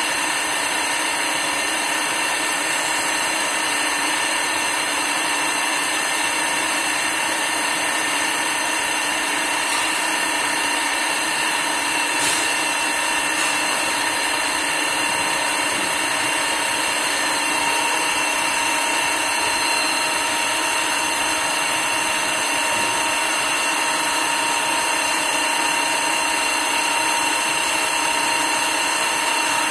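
CNC lathe turning a metal velocity-stack trumpet: the spindle and cutting tool give a steady whir with constant high whining tones, and a brief click comes about twelve seconds in.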